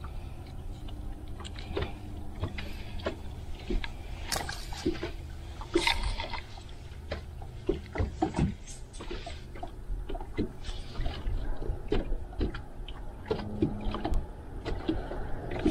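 Wind buffeting the microphone and water lapping against a small fishing boat's hull, with irregular sharp clicks and knocks throughout.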